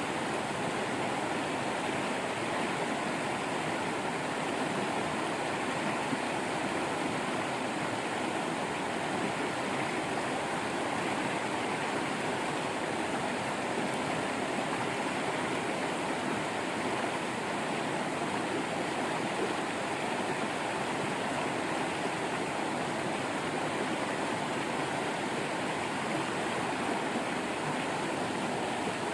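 Waterfall water running and splashing in a steady, unbroken rush.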